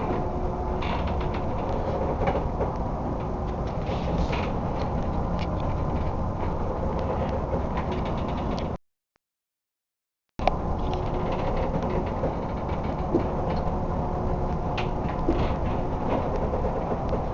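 A crab boat labouring in a storm: a steady rumble with creaks and rattling clicks from the vessel and its gear. The sound cuts out completely for about a second and a half near the middle, then returns unchanged.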